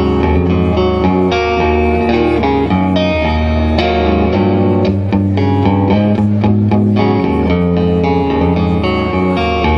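Electric guitar playing an instrumental passage: a run of changing notes over ringing low notes, with no singing.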